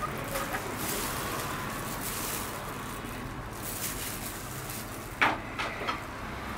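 Plastic-gloved fingers rubbing over the skin of a heel: a faint rustle over a steady low hum, with three quick clicks about five seconds in.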